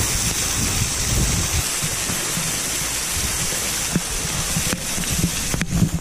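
Waterfall spray pouring and splashing close by, a steady rush of water, with wind rumbling on the microphone for the first couple of seconds and a few sharp knocks near the end.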